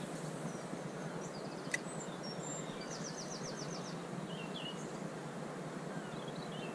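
Steady rush of water at a river weir, with small birds chirping faintly over it, including a quick run of about eight short chirps midway.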